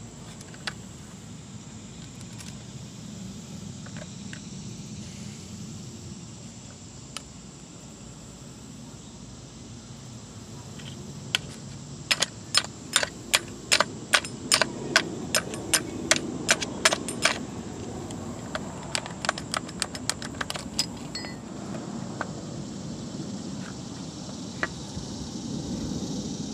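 Sharp metal-on-metal taps of a thin metal tool driving the metal retainer out of a power steering pump to free its reservoir: a quick run of about three taps a second starting about twelve seconds in, then a lighter run a little later.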